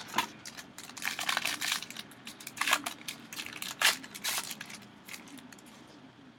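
Foil wrapper of a 2014 Panini Classics baseball card pack being torn open and crinkled, a quick irregular run of crackling rustles that thins out about five seconds in.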